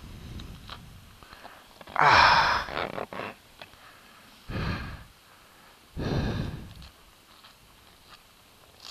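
Three breathy exhalations like heavy sighs, close to the microphone, about two, four and a half, and six seconds in; the first is the loudest. A few faint clicks lie between them.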